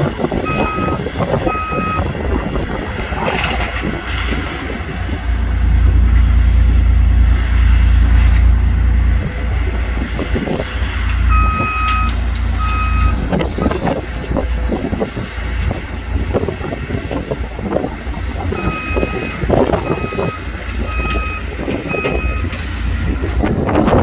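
Compact track loader with a forestry mulcher head working brush and soil: a loud, heavy low engine drone that peaks for a few seconds, with crackling as the head chews material. Its backup alarm beeps in short runs, about three near the start, two about halfway and five near the end.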